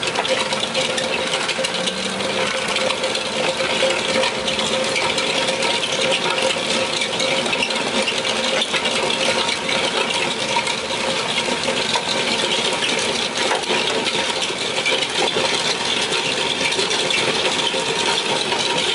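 RODO RD7 asphalt milling drum on an excavator arm grinding asphalt, a steady gritty rattle of cutter teeth chewing the surface. Under it runs the excavator's engine and hydraulics with a steady hum.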